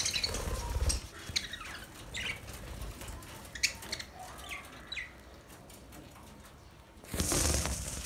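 Budgerigars in a flock: a flurry of wing flapping at the start and again near the end, with scattered short chirps in between.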